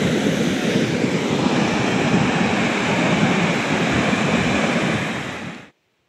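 Waterfall in full monsoon flow: a dense, steady rush of falling water heard close up, cutting off suddenly near the end.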